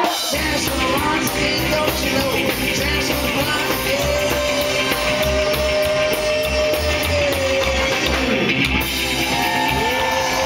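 Live rock and roll band playing, with upright double bass and singing; a voice holds one long note about four seconds in.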